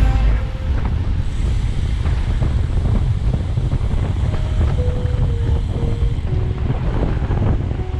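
Wind buffeting the microphone during a ride, a loud, steady low rumble. Faint music with a simple melody plays underneath from about halfway through.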